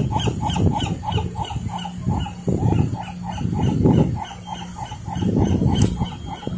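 Animal calls: rough, repeated barking or grunting calls, swelling louder about every second and a half over a fast, even pulsing.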